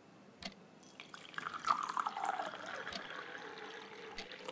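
Water poured from a large plastic bottle into a glass tumbler, the splashing and filling starting about a second in and stopping sharply near the end.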